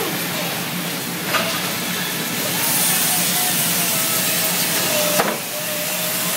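Gas brazing torch flame hissing steadily, louder for a few seconds in the middle. Two sharp clicks, one about a second in and one near the end.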